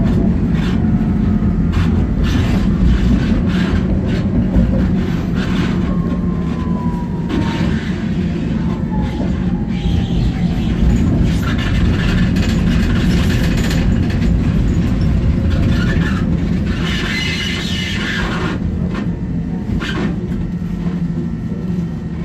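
Tatra T4D tram running, heard from inside the passenger compartment: a steady low rumble and hum of the wheels on the rails and the car. A faint whine falls in pitch about a third of the way in, and a louder, hissier stretch of a second or so comes about three-quarters of the way through.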